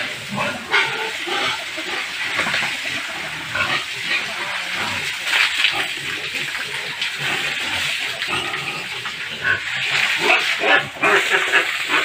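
Domestic pigs grunting while a hose sprays water over them and onto the concrete pen, splashing.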